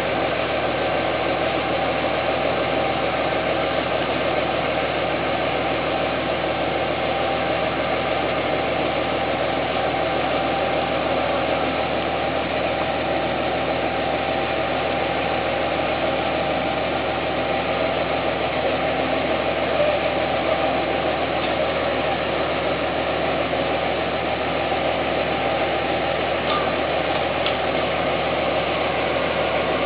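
Long-bar chainsaw cutting through a big rain tree log, its engine running steadily without let-up.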